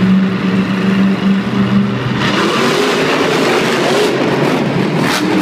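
Monster truck engine running loud, with a steady note at first; about two seconds in the note changes, rising and then falling as the truck revs.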